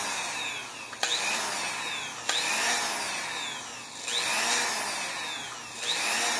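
Small brushed sewing-machine motor running in repeated surges as its foot pedal is pressed and eased off. It speeds up and slows down about every second and a half, each surge starting sharply with a whine that rises and falls. This is a test of a motor that at times runs weak and slow.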